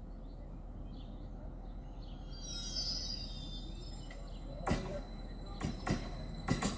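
Steady outdoor background noise with faint bird chirps, then a few sharp, irregular knocks starting about two-thirds in.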